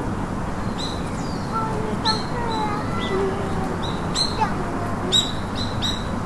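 Birds calling outdoors: short, sharp, high chirps at irregular intervals, several in quick succession near the end, over a steady background hiss.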